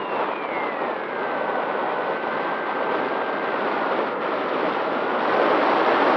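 Wind rushing over a model aircraft's onboard camera, with the motor's whine falling in pitch over the first second or so and then holding steady. The rush grows louder near the end.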